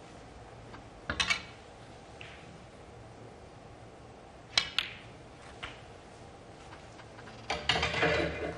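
Snooker balls clicking: sharp strikes of cue tip and ball on ball, a quick cluster about a second in and two more around four and a half seconds, then a denser clattering burst near the end.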